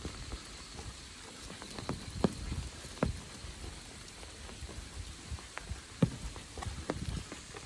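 Rain falling, with irregular louder drips and taps landing on nearby surfaces, the sharpest about two, three and six seconds in.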